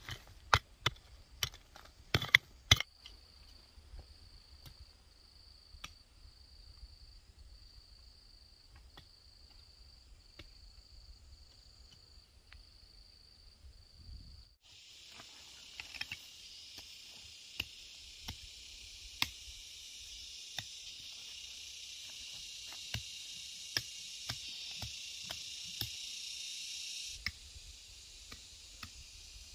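A few sharp knocks, then a single high insect chirp repeating at an even pace. About halfway through, a dense, high, steady insect buzz takes over suddenly, with scattered light clicks, and it stops abruptly near the end.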